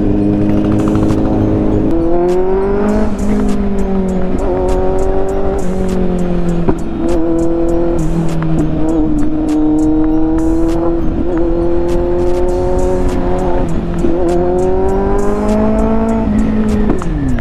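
Kawasaki Z-series inline-four motorcycle engine running under way at steady cruising revs. The pitch rises gently a couple of times as the throttle opens and drops sharply near the end as it is closed.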